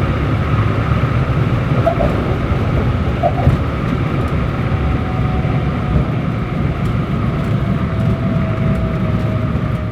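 Ford Trimotor's engines running steadily, a loud, even drone with a faint tone that slides slightly lower near the end.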